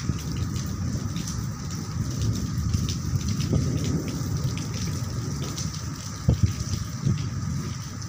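Rain falling steadily during a thunderstorm, with one brief thump about six seconds in.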